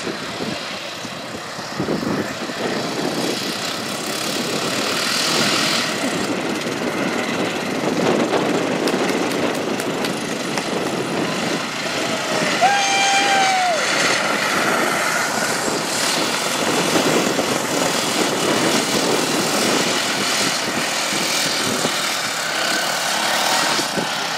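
Racing lawn tractors' small engines running at speed as several pass by on a dirt track, a steady drone that grows louder as they come near. A brief pitched tone sounds about halfway through.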